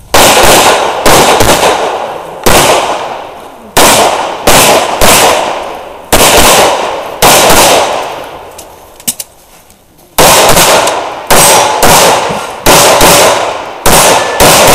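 Open-division race pistol with a compensator and red-dot sight firing about fifteen shots at an irregular pace, some in quick pairs with pauses between as the shooter moves between positions; each shot is a sharp crack that fades out slowly.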